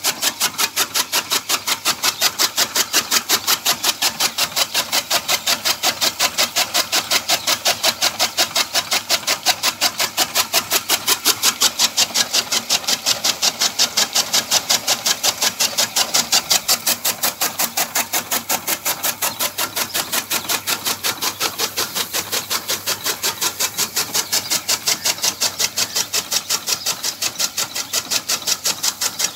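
Toka chaff cutter running, its flywheel-driven blades chopping dry straw into fodder in a rapid, even run of cutting strokes.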